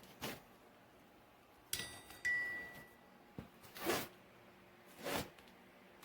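Two light metallic clinks about half a second apart, the second ringing on briefly in a clear high tone, amid a few soft handling rustles.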